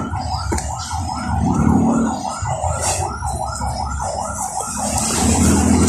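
A siren sounding a fast rising-and-falling warble, about four cycles a second, over a low rumble.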